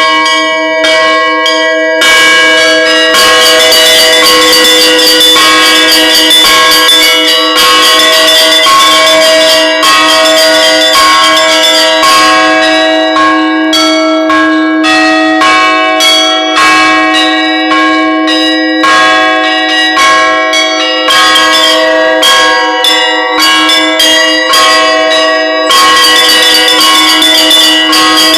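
Bells ringing: a continuous run of quick strikes at several pitches, each tone ringing on under the next.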